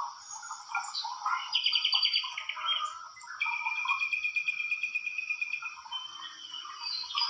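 Several songbirds chirping and trilling over one another, with a long, rapid trill in the middle.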